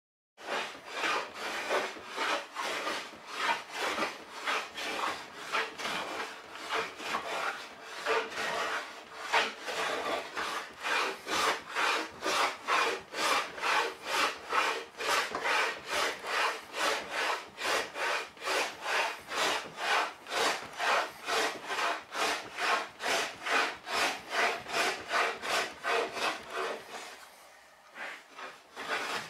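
Hand plane being pushed in quick, repeated strokes along a wooden board, planing it down to thickness. There are about two rasping strokes a second, and they let up briefly near the end.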